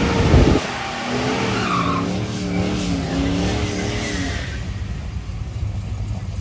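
Car engine running hard at high revs with tires squealing. The pitch wavers up and down, and the sound dies away after about four seconds.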